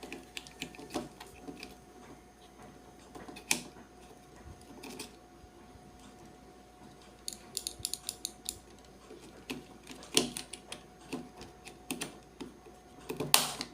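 Scattered clicks and light knocks of a Schneider EZASHT200AC shunt trip being reset and handled against a molded case circuit breaker. A quick run of small clicks comes about halfway through, and sharper knocks come near the end.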